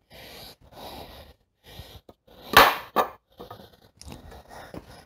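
Hands scraping and rustling while fitting parts to a portable generator's steel frame, with two sharp knocks about two and a half and three seconds in.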